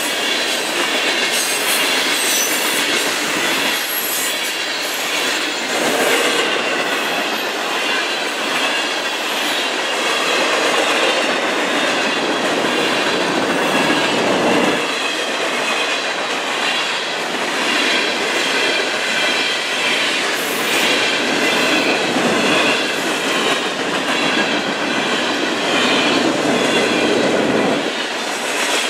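Freight cars rolling past close by: steady wheel-on-rail noise with a faint, wavering high-pitched wheel squeal and clicks of wheels over the rail joints.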